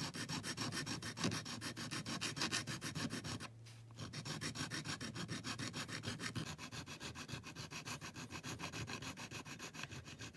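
Small hand file rasping back and forth on a die-cast metal model car's wing, at about four to five strokes a second, shaping down a super glue and bicarbonate of soda repair. The filing pauses briefly about three and a half seconds in.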